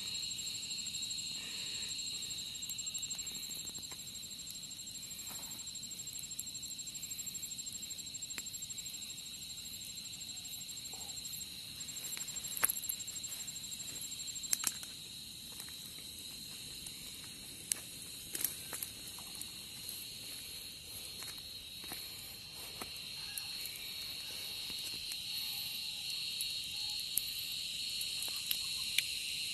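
Dusk insect chorus: a steady, high, continuous chirring drone, with a thinner and higher whine over it that stops about halfway through. A few light clicks and crackles are scattered through it.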